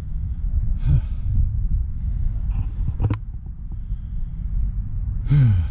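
A man breathing hard with short gasp-like grunts, one about a second in and a longer one near the end, each falling in pitch, over a steady low rumble. One sharp click about three seconds in.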